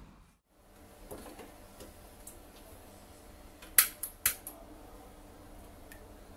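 Gas stove burner being lit: two sharp igniter clicks about half a second apart, after faint light clatter.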